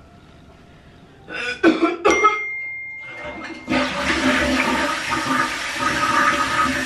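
A few short, loud, sharp noises about a second and a half in, then a toilet flushing: a loud, steady rush of water that starts about three and a half seconds in and keeps going.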